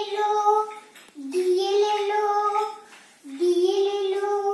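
A young girl singing the same short phrase three times over, about once every two seconds, each note held fairly steady with a short pause between.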